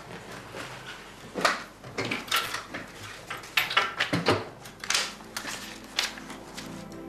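Irregular knocks, clicks and paper rustles of things handled at a wooden desk as a cheque book is taken out and written in.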